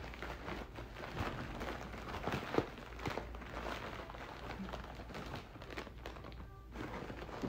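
Packaging being handled: irregular rustling and crinkling with small clicks and knocks, with a sharper click about two and a half seconds in.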